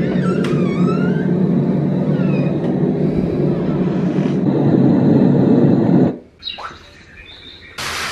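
Loud steady rushing noise with a low hum, heard as the bedroom door is opened; a few short high squeaks sound near the start, and the noise cuts off abruptly about six seconds in.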